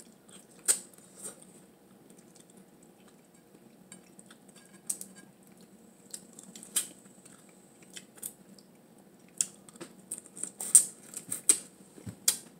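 Close-miked eating of blue crab: irregular sharp clicks, lip smacks and sucks as meat is sucked and picked out of the shell, over a faint steady low hum.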